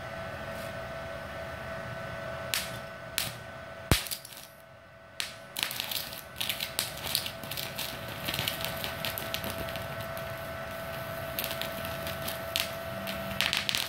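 Stick-welding arc from a small IGBT inverter welder burning a 2 mm electrode: a few sharp cracks as the arc is struck, the loudest about four seconds in, then steady irregular crackling and popping as the arc holds. The welder is running on a 900-watt household supply.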